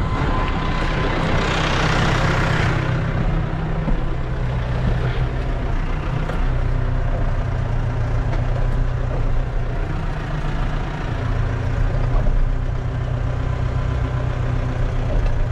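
Massey Ferguson tractor engine running steadily, heard from inside the cab, with a brief hiss about two seconds in.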